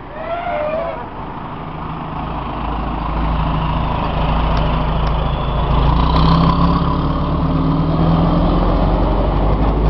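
Fire engine's diesel motor pulling away, a low rumble that grows louder about two seconds in and then holds steady. A brief wavering tone sounds in the first second.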